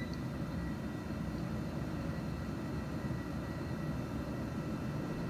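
Steady low rumble and hiss of an open mission radio loop, with faint steady hum tones running through it.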